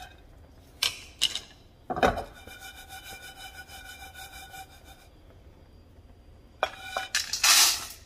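A wooden spatula scrapes and stirs dry-toasting hulled pumpkin seeds around a nonstick skillet, with a run of quick, rhythmic scraping between about two and five seconds in. Near the end, a louder rush as the toasted seeds are tipped from the pan into a stainless steel colander.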